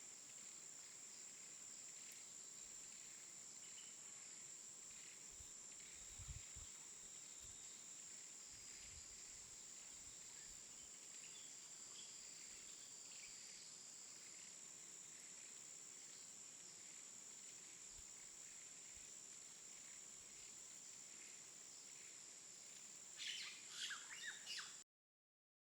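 Near silence: faint hiss with a steady high-pitched whine, a few soft low thumps, and a short cluster of clicks near the end before the sound cuts out completely.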